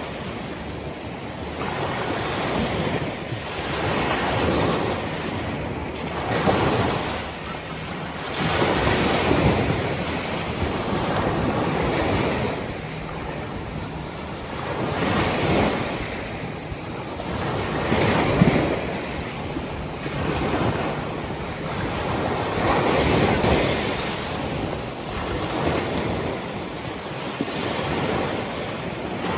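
Small ocean waves breaking and washing up on a sandy beach, a rush of surf swelling and falling every two to three seconds, with some wind on the microphone.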